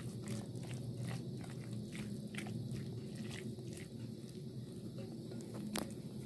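Silicone spatula stirring yogurt-marinated chicken pieces in a glass bowl: wet squelching strokes about two a second, with one sharper click near the end, over a low steady hum.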